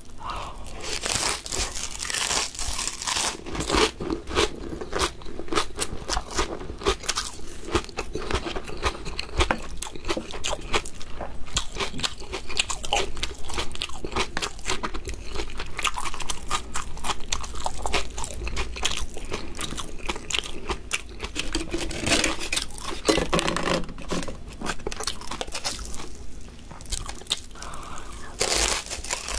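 Close-miked crunching and chewing of fried laver chips (gim bugak) eaten with rice: crisp crackles of the seaweed chip over wet chewing, continuing bite after bite.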